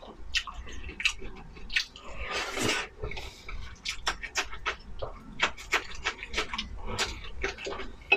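Close-up mouth sounds of a person eating braised pork rice: irregular wet smacks and clicks of chewing, with a longer rushing breath-like noise about two seconds in.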